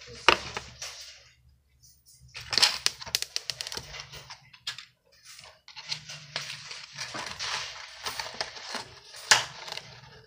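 Slime being squished and worked by hand, giving long runs of crackling, sticky popping clicks, broken by two short pauses, one after about a second and a half and one near the middle.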